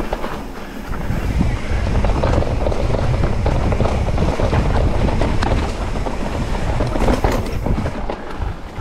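Mountain bike riding a rough trail: tyres rumbling over the ground and the bike rattling and clicking over bumps, with wind noise on the microphone. The rumble gets louder about a second in.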